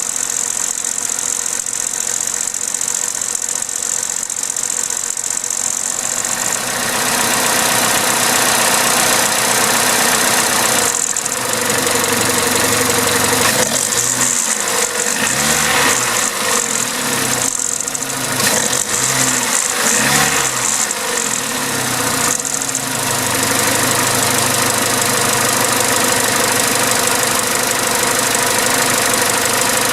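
Vauxhall/Opel A14XER 1.4-litre inline-four petrol engine running, with a rattle from its timing chain; the chain is worn. The sound gets louder about seven seconds in and wavers unevenly through the middle stretch before settling again.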